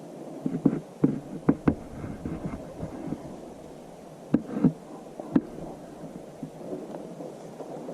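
Irregular sharp knocks and thumps, about seven of them, bunched near the start and again in the middle, over steady low noise.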